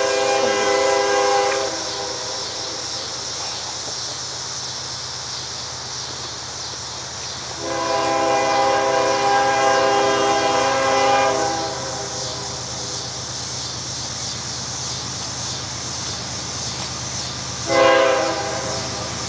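Air horn of CSX GE Evolution-series diesel locomotive 5331 sounding two long blasts and then a short one near the end, the opening of the long-long-short-long grade-crossing signal. A steady low rumble from the approaching locomotives runs between the blasts.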